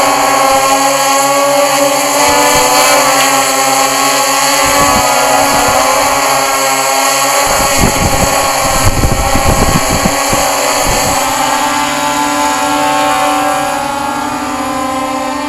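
Walkera Scout X4 quadcopter's four motors and propellers whirring steadily as it flies overhead. Low rumbling on the microphone comes in about eight seconds in, and the whir grows softer near the end.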